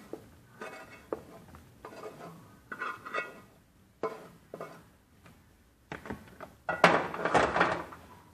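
Kitchen utensils clinking and knocking against pans and dishes, a series of separate strikes, with a louder stretch of rattling and scraping near the end.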